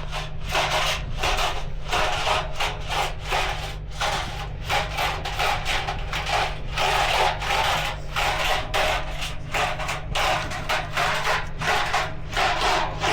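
Old Hotpoint washing machine running its drum on a slow tumble: the motor hums steadily while a rough scraping, rubbing noise from the load inside swells and fades over and over, about twice a second.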